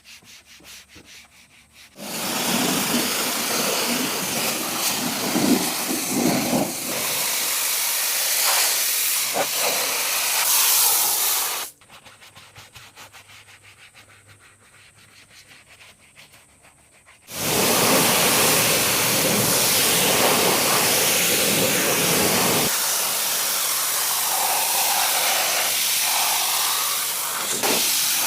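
Two long bursts of loud, even hissing from a high-pressure jet, each starting and stopping abruptly. The first starts about two seconds in and runs for nearly ten seconds; the second starts about six seconds after it ends and runs almost to the end. Between them is a quiet stretch of fast, regular ticking.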